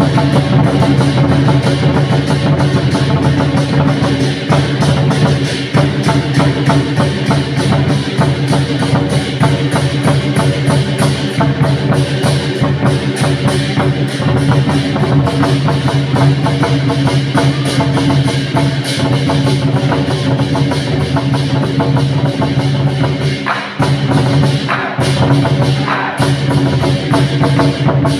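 Lion dance percussion: a troupe of drums beating a fast, steady rhythm with gongs ringing over it.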